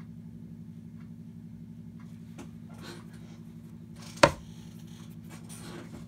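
A single sharp knock about four seconds in, over a steady low hum, with a few faint soft ticks before it.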